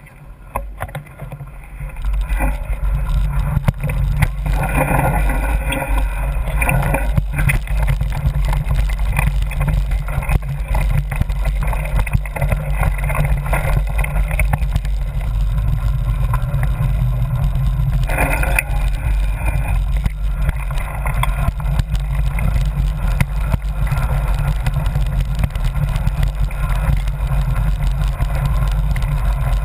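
Wind buffeting and ride rumble on a mountain-bike camera's microphone as the bike rolls down a dirt trail, with small rattles from the rough ground; it gets louder about two seconds in.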